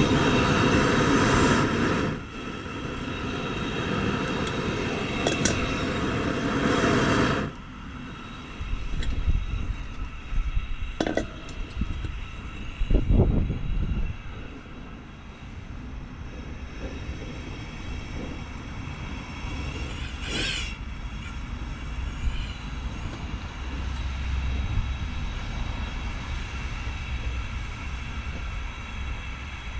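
Propane ring burner running with a loud, even rushing hiss that drops off suddenly about seven seconds in. A run of metal knocks and clunks follows as the steel pot is set down on the burner, then the burner runs on with a weaker steady low rumble under the pot.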